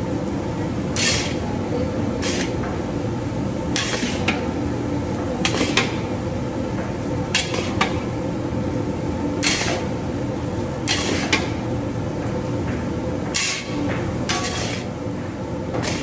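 Long-handled metal spatula clanking and scraping against a large wok as a big batch of noodles is stir-fried, a sharp clank every second or so, over a steady low rumble.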